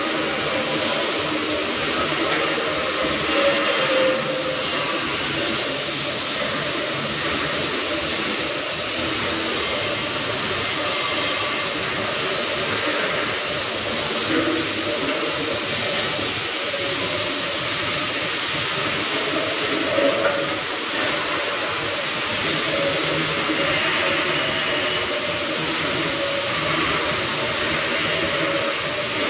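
Arc welding on steel beams: a steady crackling, frying hiss from the welding arc, with a few slightly louder bursts.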